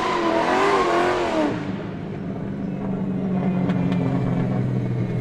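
Car sound effect: an engine revs with a wavering pitch over a rush of noise, then after about a second and a half settles into a steady low drone.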